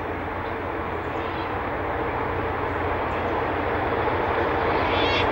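Diesel freight locomotives approaching around a curve, their engines' steady drone growing gradually louder.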